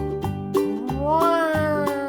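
Upbeat children's background music with a steady beat and plucked-string notes, with a sliding tone that rises and then slowly falls about halfway through.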